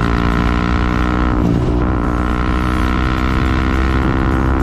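Sport motorcycle's engine running steadily at high revs while riding, a dense droning hum. About a second and a half in it dips briefly, then holds steady again.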